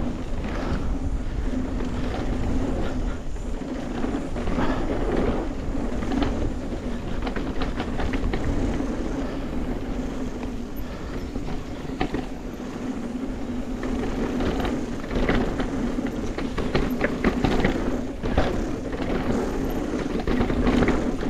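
Bicycle being ridden: a steady low rumble and hum of the tyres rolling, with wind on the microphone and scattered clicks and rattles.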